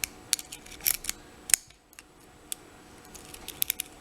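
Sharp little metal clicks and scrapes of a lock pick working the pins of a Kasp 14040 six-pin padlock under a tension wrench, coming in scattered clusters, with one louder click about a second and a half in and a quick run of clicks near the end.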